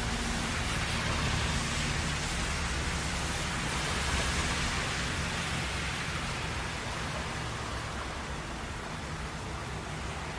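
Steady hiss of heavy rain over a low rumble of traffic on a wet road, easing a little in the second half.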